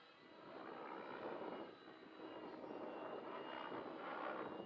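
Radio-controlled 3D helicopter flying at a distance: a faint steady whine with several thin tones. It grows louder about a second in and then rises and falls.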